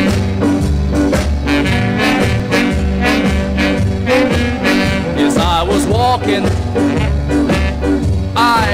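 Ska music: an instrumental intro with horns over a bass line and a steady, even beat.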